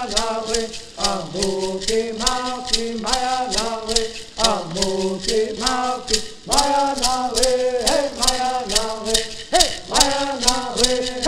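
A group of men singing a traditional Southern California bird song in unison while shaking gourd rattles in a steady beat, about three to four shakes a second.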